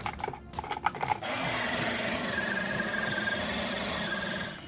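Drum strikes for about the first second, then a steady grinding hiss for about three seconds that stops abruptly: a hand-cranked rotary grater shaving soft sodium metal into curls.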